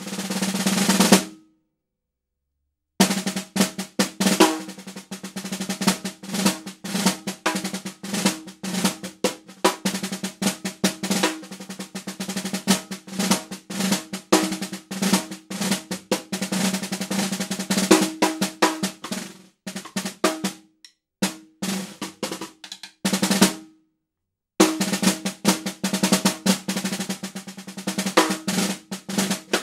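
Solo snare drum played with sticks: a roll swelling louder cuts off abruptly about a second in, and after a short silence fast strokes and loud accented hits run on, with two short pauses later.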